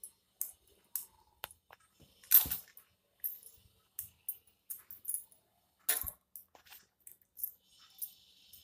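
Metal knitting needles clicking and clinking irregularly while stitches are cast on, with two louder knocks about two and a half and six seconds in.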